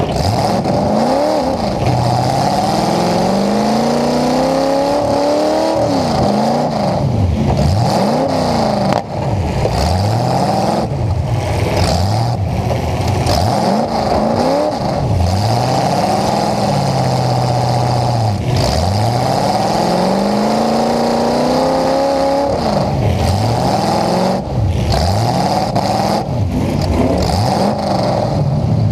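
Full-size demolition derby truck's engine with exhaust pipes up through the hood, heard from inside the cab, revving up hard and dropping back every second or two as it is driven in a derby heat. A few sharp crash impacts cut through the engine noise.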